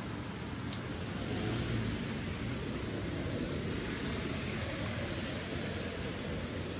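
Steady outdoor background noise: an even low rumble with a faint, steady high-pitched tone above it, and no distinct calls or knocks.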